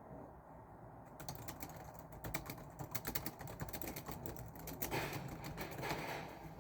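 Typing on a computer keyboard: after a quiet second, a fast, uneven run of keystrokes.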